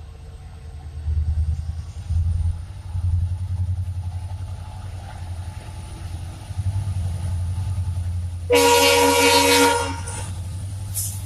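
EMD WDG-4 diesel locomotive's two-stroke 16-cylinder engine running with a low rumble as it accelerates a long freight train. About eight and a half seconds in, its multi-tone horn sounds once for just over a second.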